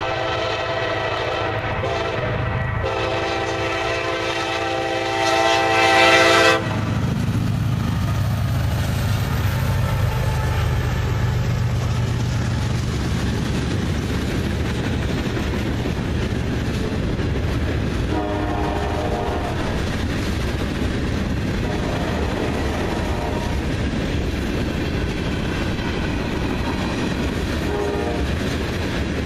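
Kansas City Southern freight locomotive's horn sounding two long blasts, the second louder toward its end and cutting off about six and a half seconds in. Then the steady rumble and clatter of a long freight train's boxcars and tank cars rolling past on the rails.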